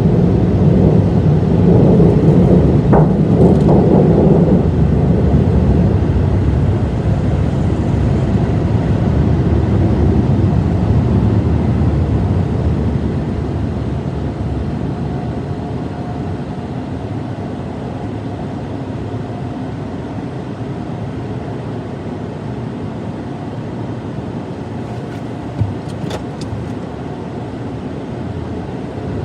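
Steady rumble of a car, loudest for the first dozen seconds and then easing to a lower, even level, with a single short click near the end.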